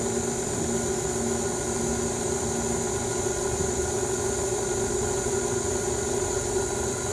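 KitchenAid tilt-head stand mixer running steadily at a constant speed, its flat beater mixing flour into cookie dough in a stainless steel bowl.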